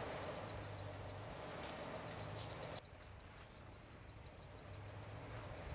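Nissan Patrol TB48's 4.8-litre straight-six petrol engine running at idle, faint and steady. The level drops suddenly about three seconds in.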